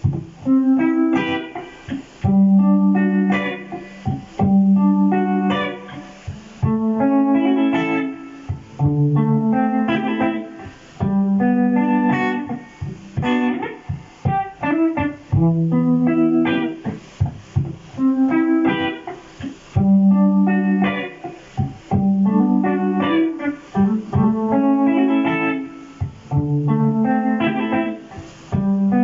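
Electric guitar played through a Boss GT-100 multi-effects unit in a looped, jazz-style freestyle: plucked chords and single-note lines over lower notes that recur every few seconds.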